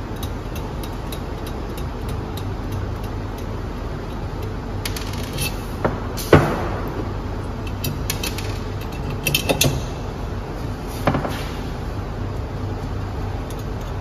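Clicks and knocks of metal waveguide parts being handled: the detector mount is taken off the slotted section and an E-plane tee is fitted to its flange. The loudest knock comes about six seconds in, and the clicks sit over a steady low hum.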